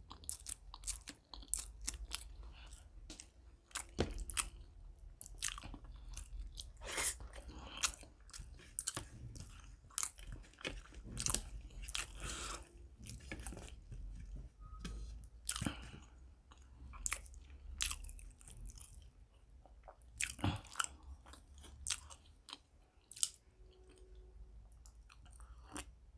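A person chewing a mouthful of chicken liver and gizzard curry with paratha close to the microphone: irregular crunches and sharp mouth clicks, thinning out in the last few seconds.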